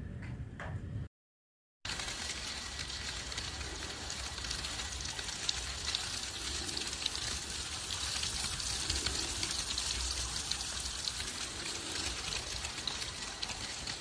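Snowstorm noise: a steady, even hiss with a fine crackle. About a second in, a low rumble cuts off into a moment of dead silence before the hiss begins.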